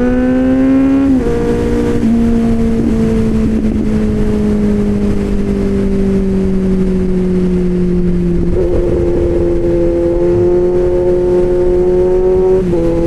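Kawasaki Z750 inline-four running through an aftermarket SC-Project-style exhaust while riding. The revs climb and drop sharply with an upshift about a second in, fall slowly as the rider eases off, then build again with another upshift near the end, over wind rush on the microphone.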